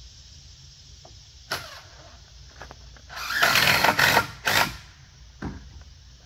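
Power drill driving a screw into the wooden deck railing in a burst of about a second, with a few sharp knocks and clicks before and after.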